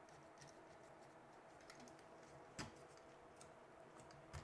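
Faint small clicks and ticks of a screwdriver turning a terminal screw on a GFCI receptacle held in the hand, with two sharper clicks, one about halfway through and one near the end.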